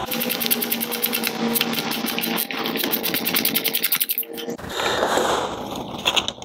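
Ratchet wrench with a 13 mm socket spinning off the timing-belt tensioner nut of a 1.4 HDi diesel engine. It makes a fast, even clicking over a steady hum for about two and a half seconds, then the hum runs on briefly and a short rustling noise follows.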